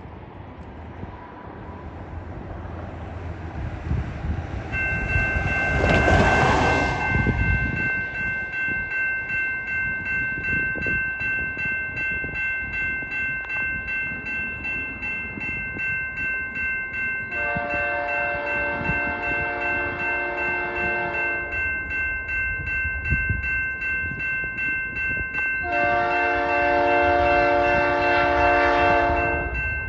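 Level-crossing warning bell ringing steadily from about five seconds in. An approaching CP freight locomotive sounds its horn in two long blasts, the second ending just before the close. A rushing noise swells and fades around six seconds, just as the bell starts.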